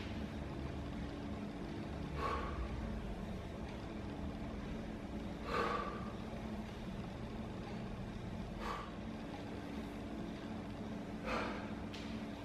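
A person breathing hard through the nose in short sharp breaths, one every three seconds or so, four in all, in time with slow bodyweight squats. A steady low hum runs underneath.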